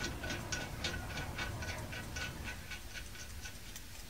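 Ratchet wrench clicking as a brake caliper bracket bolt is run in, about five even clicks a second, fading out about three seconds in.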